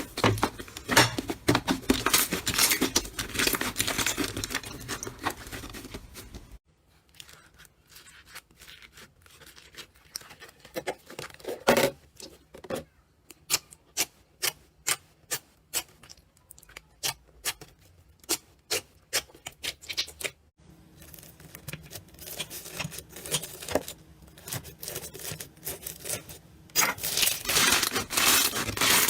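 Slime being squeezed and poked by hand, crackling and clicking. There is dense crackling at first, then separate sharp pops at about one or two a second, and denser crackling again near the end.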